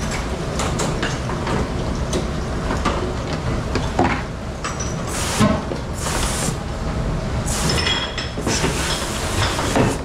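Commercial pre-rinse spray hose hissing in several short bursts of water over a stainless-steel dish sink, mostly in the second half, with a few knocks of dishes. Under it runs the steady low rumble of dish-room machinery.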